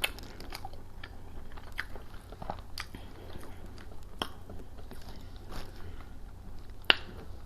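Close-miked mouth sounds of a person eating sauced fried fish and chicken: biting and chewing with wet smacking and scattered crunchy clicks, the sharpest click near the end.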